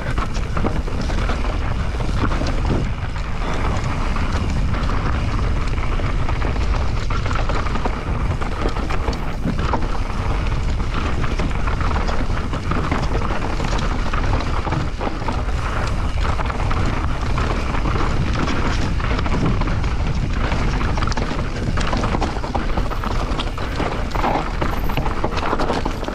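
Transition Spire enduro mountain bike ridden fast down a loose, dry dirt trail: wind buffeting the action-camera microphone, tyres rolling and sliding over dirt and stones, and frequent knocks and rattles from the bike over rough ground.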